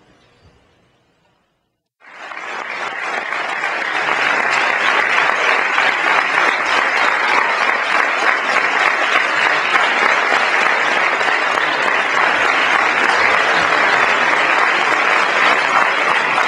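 Audience applause: after a moment of near silence, clapping starts about two seconds in, builds quickly over a couple of seconds and then holds steady.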